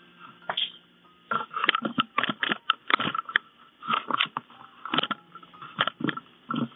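A paper sketch pad and art supplies being handled on a table: an irregular run of short rustles and light taps.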